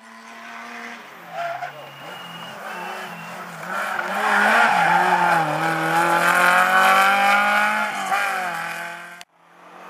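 Rally car engine coming closer and revving hard round a hairpin, loudest from about four to eight seconds in, its pitch rising and falling with the throttle; the sound cuts off suddenly near the end.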